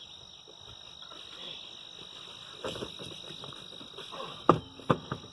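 Insects chirring in a steady high tone, with a few sharp knocks about four and a half seconds in.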